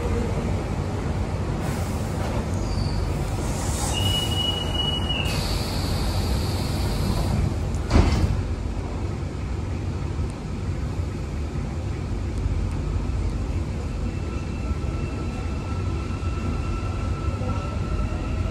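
Metro carriage at a platform: a high, steady door-warning tone sounds for about a second, then the doors shut with a sharp bang about eight seconds in, all over a constant low rumble. Near the end a faint whine comes in as the train starts to move.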